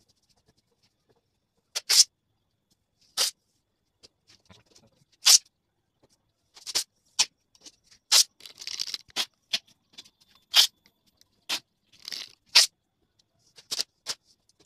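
Masking tape being pulled off the roll and torn, in more than a dozen short, sharp rips at irregular intervals, with near silence between them.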